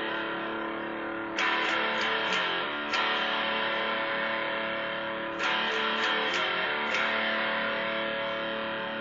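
Les Paul-style electric guitar played in strummed chords that are left to ring. Fresh chords are struck about a second and a half in, at three seconds and at about five and a half seconds, with lighter strums between.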